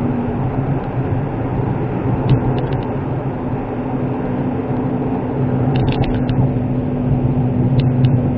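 Suzuki Wagon R (MH23S) kei car being driven, heard from inside the cabin: the small three-cylinder engine's steady hum under tyre and road noise. A few short clusters of faint high ticks come about two, six and eight seconds in.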